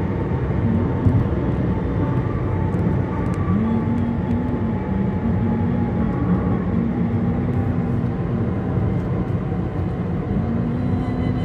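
Steady road and engine noise inside a car's cabin at highway speed, with a low steady hum that fades in and out.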